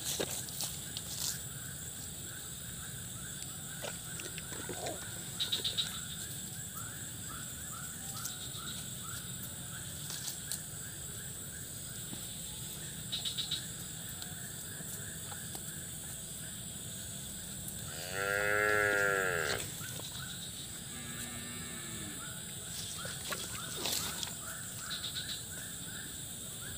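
A cow moos once, loud and under two seconds long, its pitch rising and falling, about two-thirds of the way in. A fainter, lower call follows a couple of seconds later. Steady, rhythmic chirping runs underneath.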